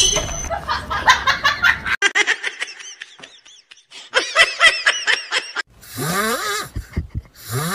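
A person laughing in quick repeated bursts, with a short pause in the middle.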